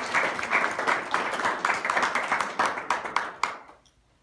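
Audience applauding, thinning to a few last separate claps and stopping about three and a half seconds in.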